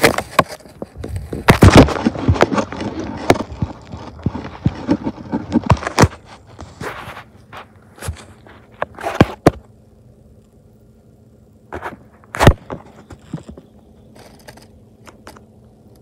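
Handling noise: busy scraping, rubbing and clicking for the first six seconds, then scattered knocks and clicks, one loud knock near the end, over a faint steady low hum.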